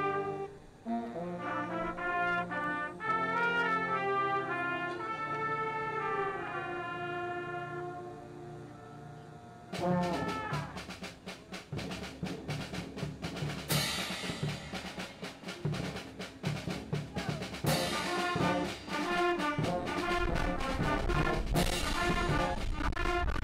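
A school concert band playing. Brass holds slow, sustained chords that die away. About ten seconds in, a faster section starts with drums, a steady beat and cymbal crashes about every four seconds.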